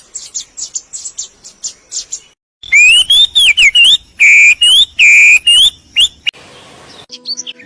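Birds calling: a quick series of short, high chirps, then loud whistled calls that glide up and down, cut off by a brief hiss, and more chirping near the end.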